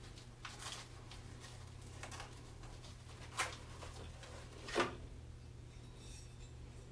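Faint handling noises as a die-cut geosynthetic clay liner sample is pushed out of a steel rule die into a plastic container on a balance, with two short light knocks, one about three and a half seconds in and one near five seconds. A steady low hum runs underneath.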